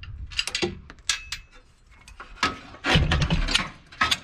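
Metal clinks and rattles as a hand-crank trailer winch is handled and lifted off its mount. A few light clicks come first, then a longer run of clatter and dull knocks in the second half.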